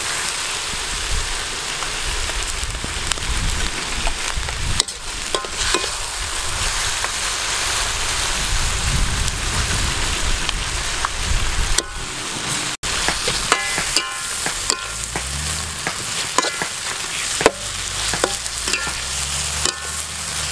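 Pineapple, green pepper and onion sizzling in a steel wok as they are stir-fried, with a metal spatula scraping and clinking against the pan again and again.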